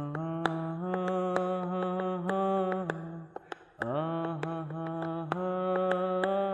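Bengali folk song: a male singer holds long wordless notes in two drawn-out phrases with a short pause between them, over light, regular percussion clicks.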